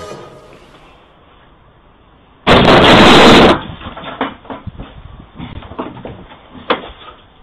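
A sudden, very loud burst of noise about two and a half seconds in, lasting about a second, followed by scattered sharp knocks and clatters.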